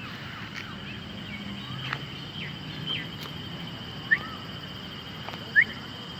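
Outdoor ambience of birds chirping over a steady high-pitched insect drone, with two short, loud rising chirps about four and five and a half seconds in.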